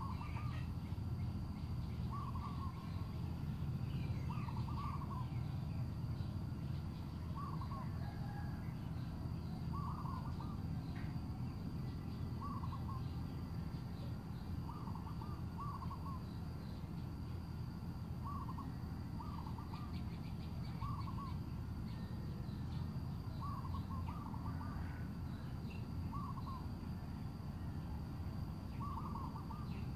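A bird calling over and over: short hooting calls of two or three quick notes, one about every two seconds, over a steady low rumble.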